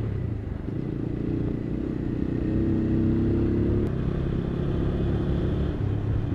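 Motorcycle engine running steadily; its note climbs slightly about two and a half seconds in and drops back near four seconds.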